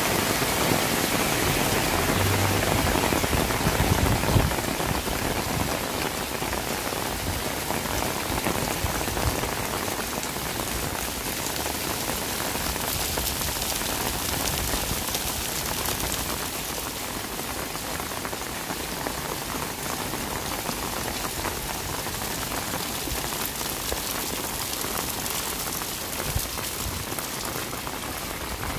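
Steady rain falling on a wet paved street, a dense patter of drops that is heaviest in the first few seconds and eases slowly after.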